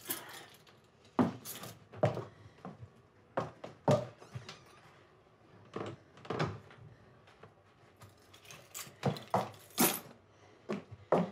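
Irregular knocks, thuds and clicks at a front door, a dozen or so spread unevenly, some sharp and loud, with a light jangle like keys.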